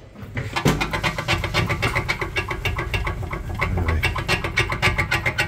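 A machine running with a rapid, even mechanical clatter over a low hum, starting about half a second in.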